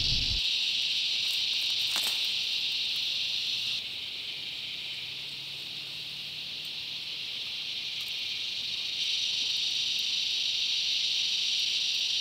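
Steady, high-pitched chorus of insects buzzing in the bush, which drops a little about four seconds in and rises again about nine seconds in.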